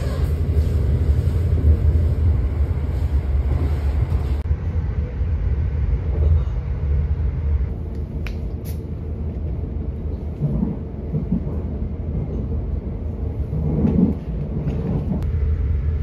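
Passenger train running, heard from inside the carriage: a steady low rumble. A couple of brief clicks come about eight seconds in.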